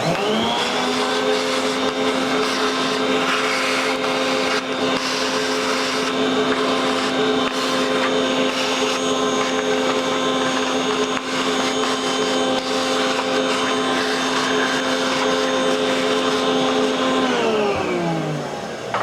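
Electric motor of a shop machine tool switched on, spinning up almost at once and running at a steady pitch, then switched off near the end and winding down with a falling hum.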